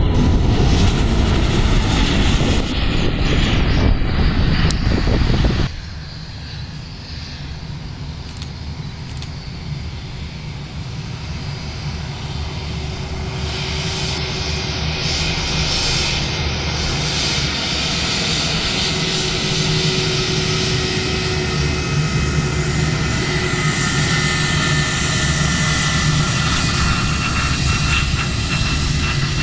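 Jet airliner engines: loud, even engine noise for the first five or so seconds, which cuts off abruptly. Then another jet is heard approaching, its engine noise and a high, steady whine slowly growing louder.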